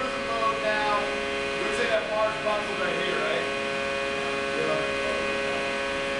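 Steady electrical hum, made of many steady tones, from the concrete compression testing machine standing idle with its broken column specimen. Faint murmured voices run under it in the first few seconds.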